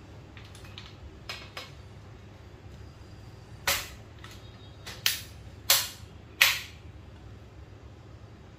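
Aluminium frame of a folding projector screen being put together: a few light clicks, then four loud sharp snaps a little under a second apart as parts lock into place.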